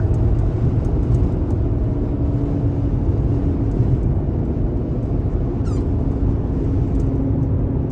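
Steady low rumble of wind and vehicle noise at the scene of a tornado, with a faint steady hum in places and one brief high squeak about six seconds in.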